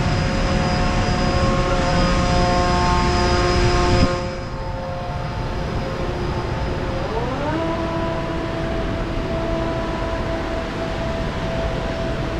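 Airport ramp noise: the steady rumble and whine of aircraft and ground-handling equipment. About four seconds in the sound changes abruptly, and about seven seconds in a machine whine rises in pitch, holds, and drops again near the end.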